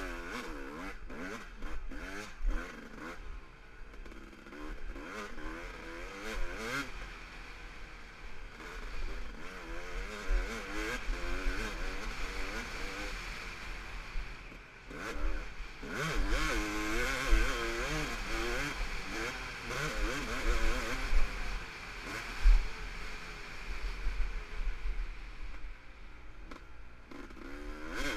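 Motocross dirt bike engine revving up and down over and over as the throttle is worked and gears are changed, heard from on the bike, with occasional knocks and clatter over the bumps.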